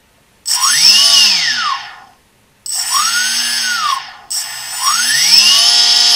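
Small 2200KV brushless RC motor run up and back down by the throttle three times: a whine that rises in pitch and falls again each time. The third run is the longest.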